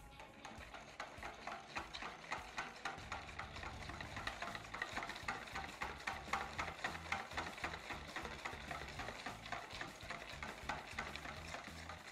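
Wire balloon whisk beating thick mayonnaise in a bowl by hand: quick, even strokes, about five a second, with the wires clicking and scraping against the bowl. The emulsion holds stiff and is not breaking.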